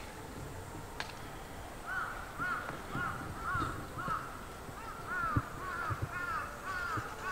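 A crow cawing in a steady series of about a dozen caws, roughly two a second, starting about two seconds in.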